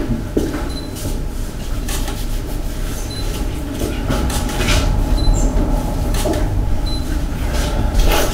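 Clothing rustling and a few pats on the back as people hug, over a steady low rumble.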